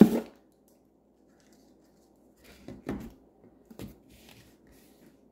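Plastic clamshell packs of wax melts being handled and taken out of the box: a few knocks and rustles, the loudest right at the start.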